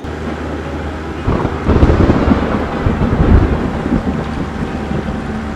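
Thunder sound effect: a rolling rumble that swells about a second in and dies back after a few seconds, over a steady low hum and a hissing rain-like haze.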